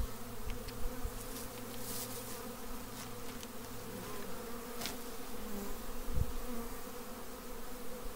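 Carniolan honey bees buzzing in a steady hum around an open hive, with a few small clicks and a thump as frames are handled.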